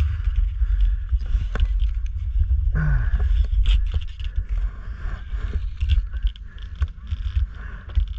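Wind buffeting the microphone in a steady low rumble, over the hiss and scrape of blades gliding on clear lake ice, with scattered clicks and knocks from the ice.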